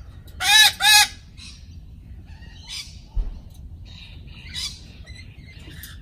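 Rainbow lorikeets squawking: two loud, short calls close together near the start, then softer scattered chirps.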